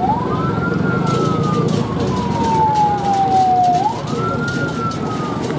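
Escort vehicle's wailing siren: a quick rise then a long slow fall in pitch, twice, over steady street and engine noise.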